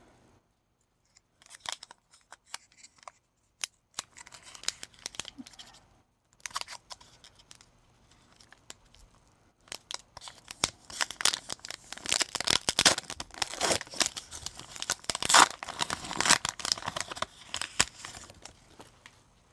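Foil Pokémon booster pack wrapper being torn open and crinkled, in short scattered bursts at first, then a long busy stretch of crinkling and tearing in the second half.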